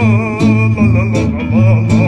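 Music with a plucked string bass line changing notes several times a second, under a wavering melody.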